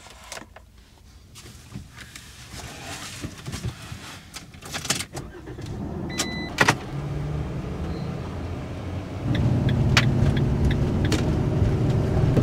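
Camper van cab sounds: scattered clicks and handling noises, a short electronic dashboard beep about six seconds in, then the van's engine and road noise while driving, louder from about nine seconds in, with a few sharp ticks.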